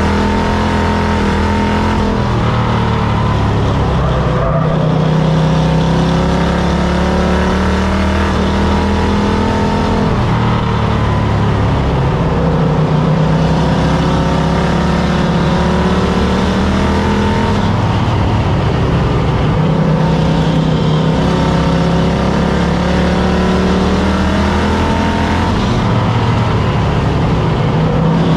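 Stock car engine heard from inside the roll-caged cockpit, running hard under racing load. Its pitch drops and climbs again several times as the throttle is lifted and reapplied.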